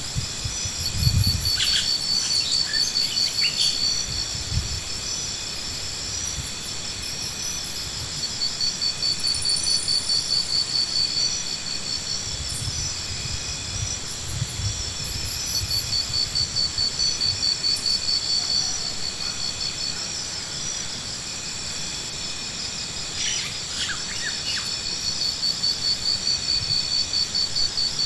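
Insects trilling steadily, with a high, rapidly pulsed trill that comes and goes in runs of several seconds, and a few short bird chirps. A few low, dull thumps sound now and then, the loudest about a second in.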